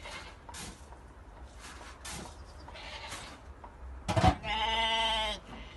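A goat bleats once, a long call of about a second near the end, just after a sharp knock. Soft knocks and rustles of the animals moving come before it.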